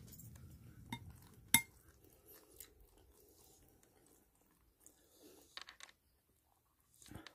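A metal spoon clinks against a bowl twice, about one and one and a half seconds in, the second much louder, followed by faint chewing.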